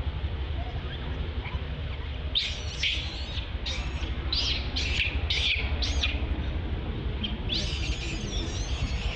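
Infant long-tailed macaque crying: a series of short high-pitched squeals starting about two seconds in, then a longer wavering cry near the end. A steady low rumble runs underneath.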